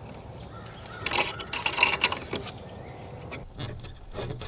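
Small metal screen door hook-and-eye latch clicking and rattling as it is handled against a wooden shutter, with a cluster of clicks and scrapes about a second to two seconds in and a few more clicks near the end.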